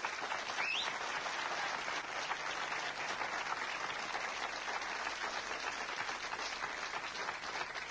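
Studio audience applauding steadily: dense, even clapping from many hands.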